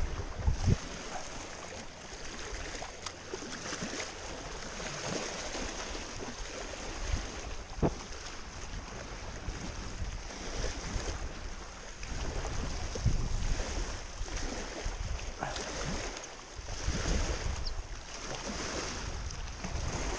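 Gusty wind buffeting the microphone over choppy lake water, small waves lapping and splashing against the rocky shore.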